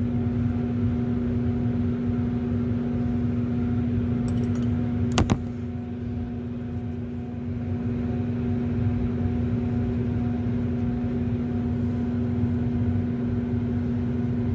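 Fume cupboard extraction fan running with a steady hum and a low rumble. A single sharp click about five seconds in.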